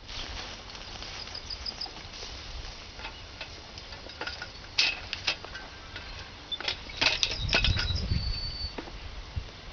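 Outdoor ambience: a low wind rumble on the microphone that swells briefly near the end, scattered sharp clicks and rustles, and a few short high chirps. No train sound stands out.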